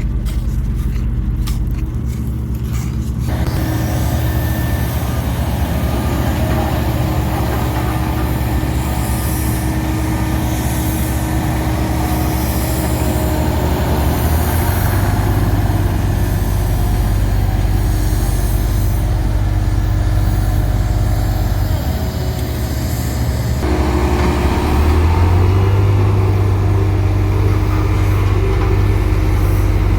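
Heavy diesel engines of road-construction machinery running steadily, with a deep engine hum that steps up in pitch about halfway through and again near the end as the load changes.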